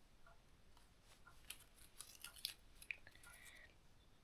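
Near silence with a few faint clicks and a brief soft rustle, about a second and a half to three seconds in, from a small object being handled.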